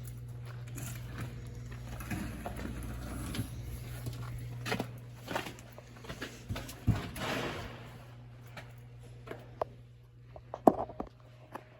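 Scattered knocks and scuffs inside a large empty building, with one sharp knock near the end, over a low steady rumble that dies away about eight seconds in.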